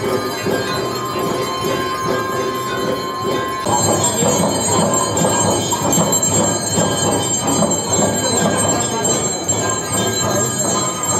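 Many temple bells ringing without pause for a Hindu aarti, over a dense, loud din of the crowded temple courtyard. The sound changes abruptly about four seconds in.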